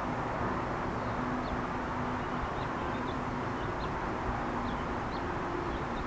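Honeybee swarm clustered on a branch, buzzing: a steady low hum that swells and fades over a constant rushing background.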